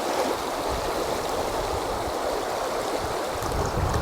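Shallow upland river, the upper River Wharfe, flowing and babbling over stones in a steady rush, with some low rumbling underneath.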